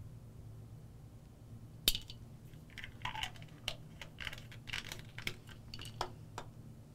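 Plastic pill bottle being capped and handled: a sharp click about two seconds in, then a run of small clicks and rattles, and a last knock near the end as the bottle is set back on the medicine-cabinet shelf.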